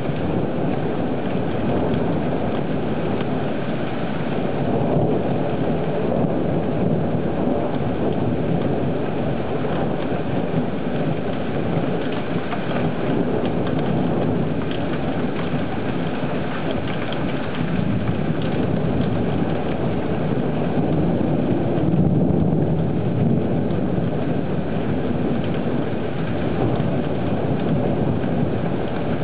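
Steady rain falling in a thunderstorm, with a low rumble of thunder swelling about two-thirds of the way through.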